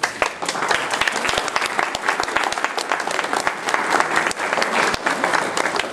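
Audience applauding, breaking out suddenly right after the speaker's closing thanks and holding steady as a dense patter of many hands clapping.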